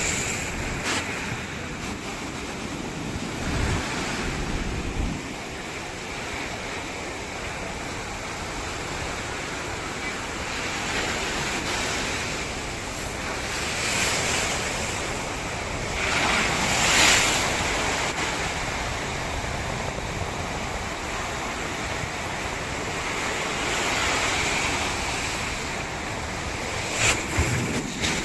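Ocean surf on a beach: a steady wash with waves breaking in swells every few seconds, the loudest about 17 seconds in. Wind buffets the microphone now and then.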